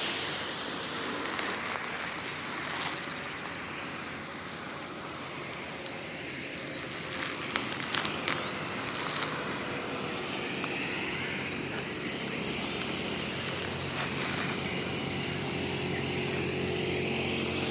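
City street ambience: a steady wash of traffic noise, with a few sharp knocks about eight seconds in and a vehicle engine droning louder toward the end.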